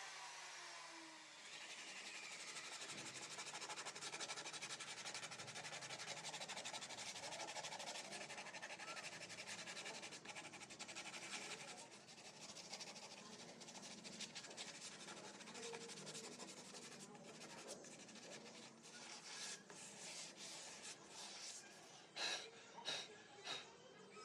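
A wood router's motor winding down with a falling whine just after switch-off, then a faint, steady rubbing over the wood surface. Near the end come a series of sharp clicks and knocks.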